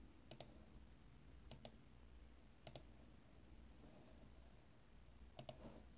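Computer mouse button clicked in four quick double clicks spread irregularly over about five seconds, faint over a low steady hum.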